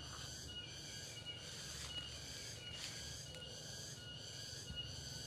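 Insects buzzing in a steady rhythm of high-pitched pulses, a little more than one a second, with a short high note recurring along with them, over a low steady rumble.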